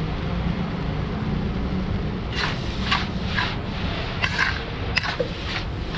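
Steel plate scraping against a large metal pan of poha as the poha is scooped up: a quick scrape about twice a second, starting about two seconds in, over a steady low rumble.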